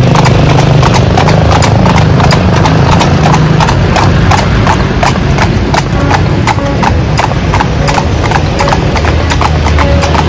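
Clip-clop of a pair of carriage horses' hooves on the asphalt as they pull a horse-drawn calèche, a steady run of sharp hoof strikes, with a low traffic rumble beneath.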